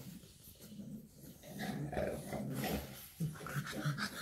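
Shar pei puppy making short, low grunting sounds, repeated in quick succession from about a second and a half in.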